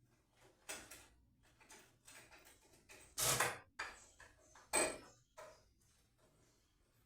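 A few separate knocks and clatters of hard objects being handled, the two loudest about three and five seconds in.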